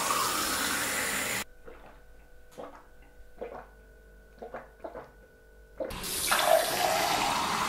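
Kitchen mixer tap running into a drinking glass, shut off after about a second and a half; then a few short gulps as the water is drunk; then the tap runs into the glass again about six seconds in.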